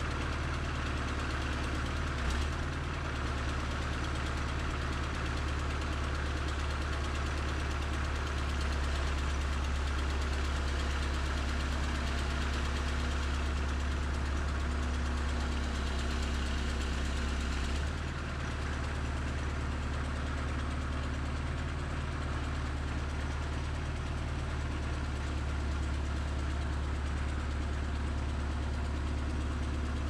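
John Deere 310SE backhoe's four-cylinder diesel engine running steadily while the backhoe arm lifts a cedar log. There is a single knock a couple of seconds in, and the engine note shifts and drops slightly about two-thirds of the way through.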